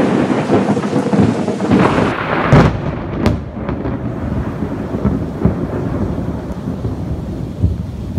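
A thunderclap cracks loudly and rolls on as a long rumble. It is loudest about two and a half seconds in, then slowly dies away.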